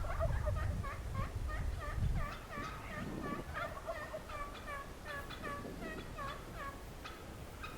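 Wild turkeys calling: a long run of quick, short notes repeated many times a second, with a low rumble over the first two seconds.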